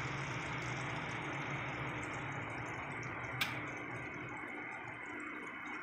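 Chicken and ampalaya simmering in a wok with a little water: a steady bubbling sizzle over a low hum, with one sharp click about three and a half seconds in.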